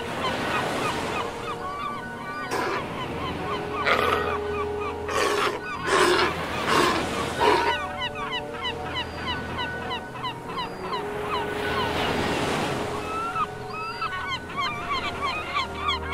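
A South American sea lion colony calling: a dense chorus of many overlapping short bleats and barks, with several louder, longer calls about four to eight seconds in.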